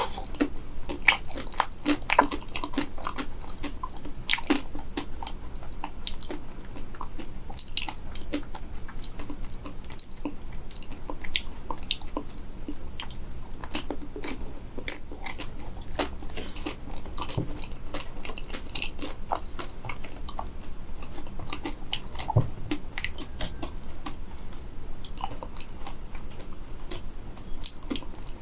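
Close-up biting and chewing of a frozen small banana dipped in a hard matcha-chocolate shell. The shell gives many sharp, irregular crisp crunches, the sign of chocolate set hard by freezing.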